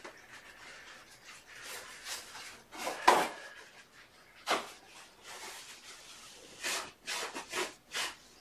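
Rustling and handling noises of objects being picked up and moved, with several short scrapes and light knocks, the loudest about three seconds in.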